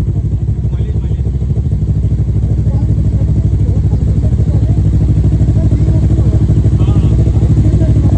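Kawasaki ZX-10R inline-four motorcycle engine running steadily through its stock exhaust, with an even low pulsing; it gets a little louder in the first second or two.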